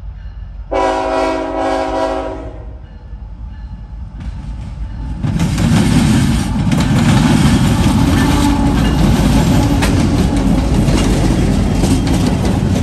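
A GE ET44AC diesel-electric locomotive sounds its horn once, a chord of about two seconds, about a second in. From about five seconds it passes close by: its GEVO-12 V12 diesel engine runs loudly, with its wheels rolling on the rails.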